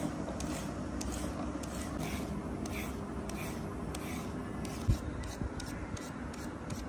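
Vegetable peeler scraping the skin off raw carrots in short, repeated strokes, about two a second, with one dull thump about five seconds in.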